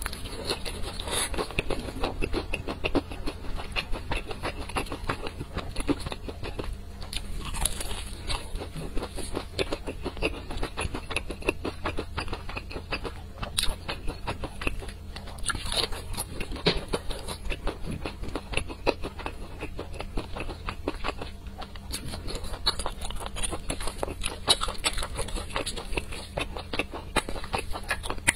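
Close-miked biting and chewing of crispy, sauce-glazed fried chicken: a dense, continuous run of crunches and crackles.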